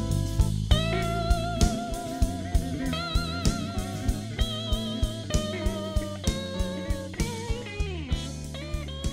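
Electric blues band playing an instrumental passage: electric guitar holding bent, wavering notes over a steady drum beat and bass line. The music slowly fades.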